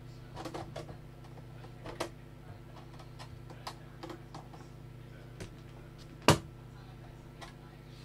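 Scattered small plastic clicks and taps as a screwdriver pries at the snap-in clips of an all-in-one PC's plastic casing, with one sharp snap a little after six seconds in. A steady low hum runs underneath.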